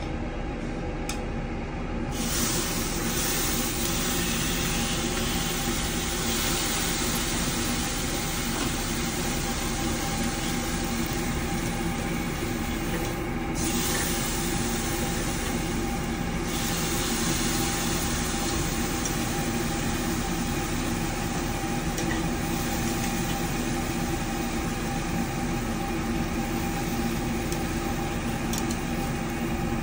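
Beef sizzling on a hot grill, a steady hiss that swells up about two seconds in, over a steady low mechanical hum.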